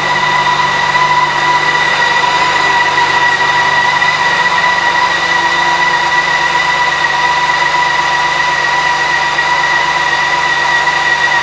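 BMW K 1600 B's inline-six engine idling steadily, with a constant high whine over its running note.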